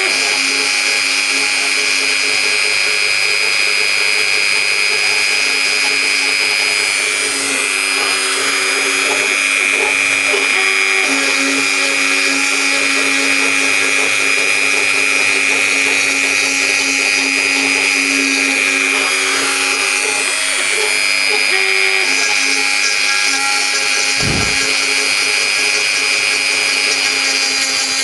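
Mini CNC router spindle running with a steady high whine as it cuts into wood, clearing out areas of a logo, its pitch shifting slightly as the cutter's load changes. A brief low thud comes near the end.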